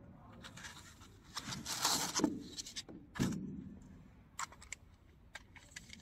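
Hands handling small plastic parts in a foam-lined case: rustling and scraping for a couple of seconds, a dull knock about three seconds in, then a few light clicks as the parts are fitted together.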